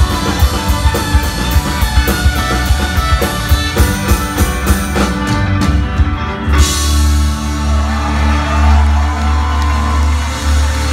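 Live rock band playing: drum kit keeping a steady beat under acoustic guitar, keyboard and violin. About six and a half seconds in, the drums stop and a held low chord rings on.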